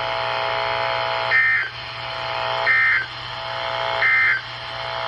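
Emergency Alert System end-of-message data bursts on NOAA Weather Radio: three short, high-pitched digital bursts about a second and a half apart, marking the end of the warning. Between the bursts, steady receiver hiss with a faint hum.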